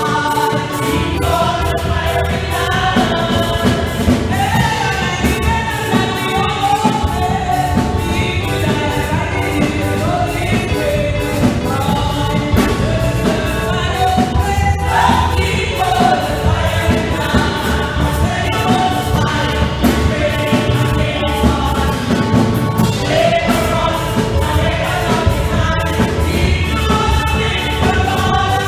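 Women's church choir singing a gospel song, with a lead singer on a microphone out front, over amplified accompaniment with a steady beat and bass.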